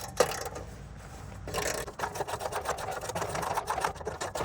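A hand ratchet clicking rapidly as it turns out an exhaust bolt under a Subaru Legacy, starting about a second and a half in, after a single sharp knock near the start.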